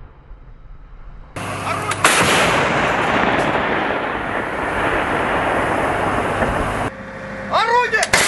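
2S7 Malka 203 mm self-propelled gun firing: a sudden blast about two seconds in, followed by several seconds of rolling rumble that cuts off suddenly.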